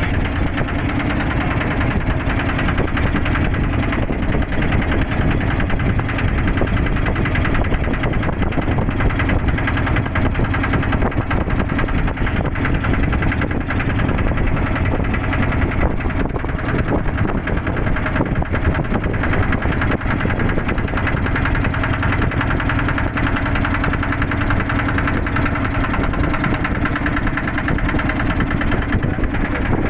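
Boat motor running steadily at an even pitch, with no change in speed.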